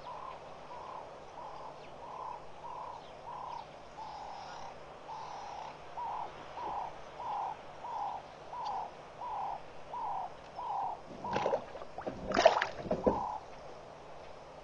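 A bird calling a long series of short, evenly spaced notes, about one and a half a second, growing louder through the series. Near the end, three loud bursts of noise cut across it.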